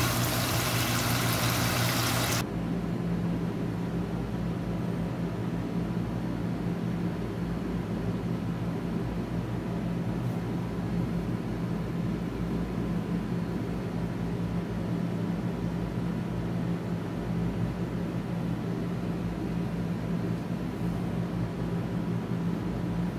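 Sweet sauce sizzling and bubbling in a wok for about two seconds, cutting off suddenly. A steady low hum runs on underneath for the rest.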